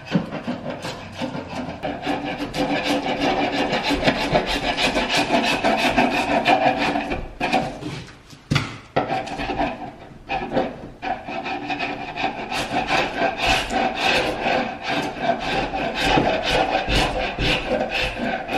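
Sharp steel chisel scraping old peeling paint off a hardwood door in quick repeated strokes, pausing briefly twice around the middle.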